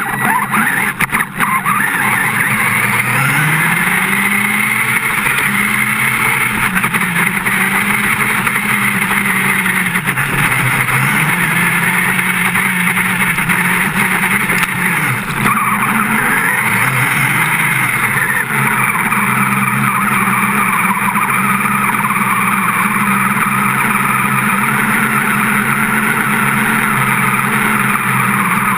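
Radio-controlled car's motor heard up close from onboard, whining steadily, its pitch rising and falling again and again with the throttle as it drives through shallow water and over grass. A few knocks and splashes in the first second or two.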